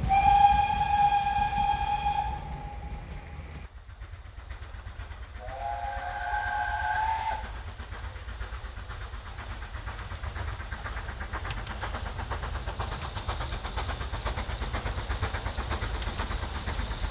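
Steam locomotive whistle held for about two seconds, then a second, lower whistle with several tones sounding for about two seconds around six seconds in. After that comes the rapid, even exhaust beat of the double-headed BR Standard Class 5 4-6-0s working a train out of the tunnel.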